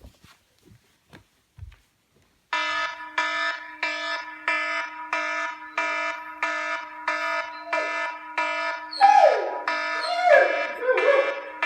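An iPhone alarm ringtone starts about two and a half seconds in, repeating a short electronic chime about twice a second. From about nine seconds in, a dog howls loudly along with it in repeated falling calls.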